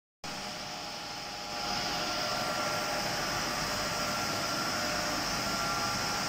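Steady hiss and hum of running plastic extrusion line machinery, with a few faint steady whining tones. It grows a little louder about a second and a half in.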